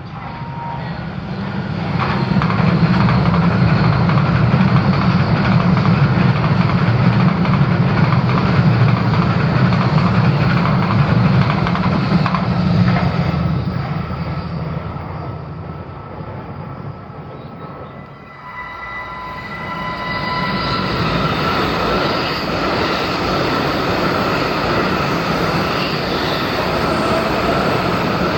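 A train passing at speed with a heavy rushing rumble that swells in the first two seconds, holds, then fades away. A second train then comes in, with steady high squealing tones and a rising whine near the end.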